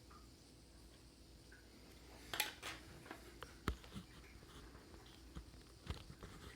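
A few light metallic clicks and taps as a padlock and small lock-picking tools are handled: a short cluster about two and a half seconds in, then single sharp clicks near four and six seconds.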